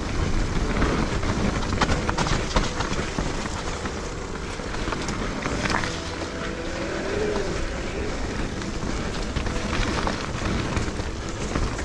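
Riding noise from an electric mountain bike on a rough dirt trail: tyres rolling over the ground with a steady rumble, and frequent sharp clicks and rattles as the bike goes over bumps.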